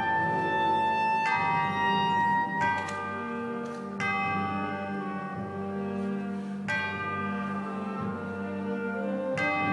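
Orchestra playing slow, sustained chords with a steady low note underneath. The harmony changes every second or two.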